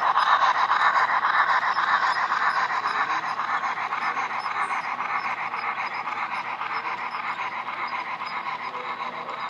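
HO scale model train, a 2-8-2 Mikado steam locomotive with its cars, running past on the track: a steady rhythmic running noise that slowly fades as the train moves away.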